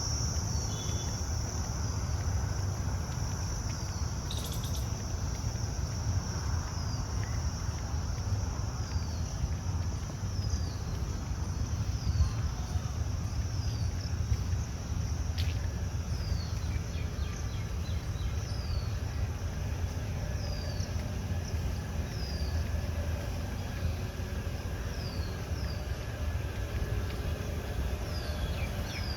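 Outdoor ambience: a steady high insect drone, with a bird repeating a short falling call every second or two, over a steady low rumble.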